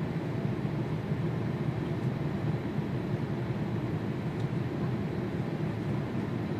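Jet airliner engines heard as a steady low rumble, with no rise or fall in pitch.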